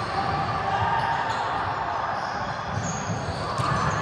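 Steady din of a busy indoor volleyball hall: balls bouncing on the hardwood floor and being struck, with players' voices mixing in and ringing around the large room.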